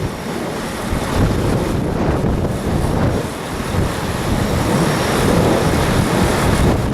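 Strong gusty wind blowing across the microphone, a loud, rough rushing noise that rises and falls and swells again near the end.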